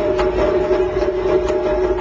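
Taiko drums struck in a steady rhythm, about two strikes a second, over a steady held pitched tone.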